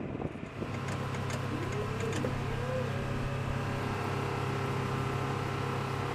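Steady machinery hum with several held tones, starting about half a second in. Twice around two seconds in there is a brief rising-and-falling whine.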